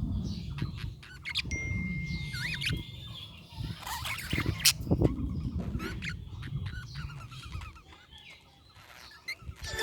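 Budgerigars chirping and twittering, with a short whistled note, scattered sharp clicks and a low rumble underneath; the chirping thins out and gets quieter near the end.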